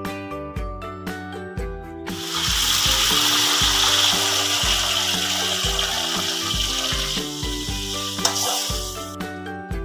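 Blended yellow spice paste hitting hot oil in a wok, sizzling loudly from about two seconds in while it is stirred with a spatula, dying down near the end. Background music with a steady beat plays throughout.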